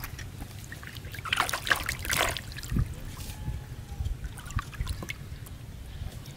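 Live fish thrashing in a plastic bucket of water, splashing and sloshing, with two bursts of splashing about a second and a half and two seconds in and smaller sloshes after.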